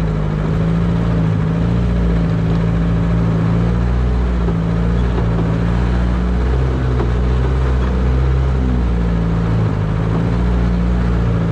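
1949 Willys CJ3A Jeep's four-cylinder flathead engine running steadily at low speed while the Jeep crawls along a trail in low-range four-wheel drive, its pitch rising and falling a little.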